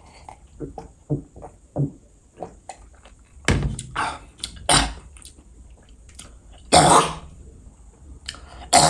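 A man gulping down a drink in a quick run of swallows, then gasping and coughing with loud, harsh breaths out, his mouth burning from king chilli.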